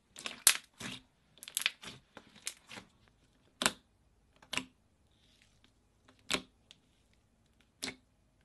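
Glossy metallic slime squeezed and pressed with fingers, giving sharp pops and crackles as trapped air bursts: a quick run of pops over the first three seconds, then four single pops further apart.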